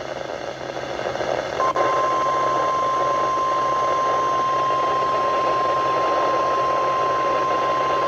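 NOAA Weather Radio receiver hissing with static, then, about one and a half seconds in, the 1050 Hz warning alarm tone starts: one steady tone that holds through the rest. It is the signal that a warning-level alert, here a river flood warning, is about to be read.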